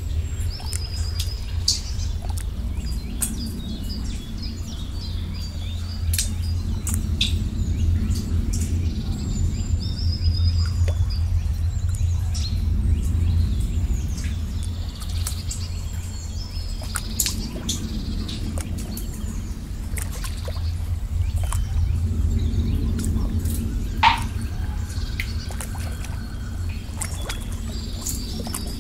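Nature ambience of a low, steady rush of flowing water with scattered drips and plops, one louder plop late on, and birds chirping briefly now and then.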